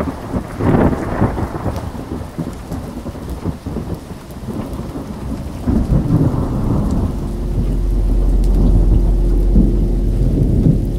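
Rumbling, crackling noise with uneven swells, like a thunderstorm. About seven seconds in, a steady very low drone and a fainter held higher tone come in beneath it.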